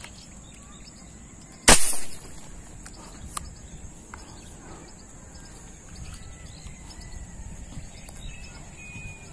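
A scoped fish-hunting arrow shooter fires once about a second and a half in: a sudden sharp shot with a short tail lasting about half a second. A single lighter click follows a second or so later, and faint bird chirps sound over a steady thin high whine.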